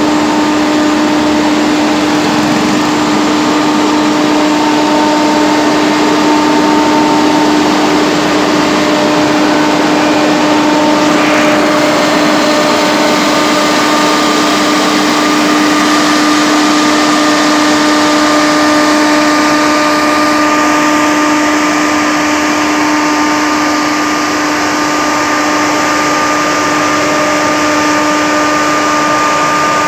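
Truck-mounted mist-blower pesticide sprayer running steadily, its engine and fan making a loud, even drone with a strong steady hum.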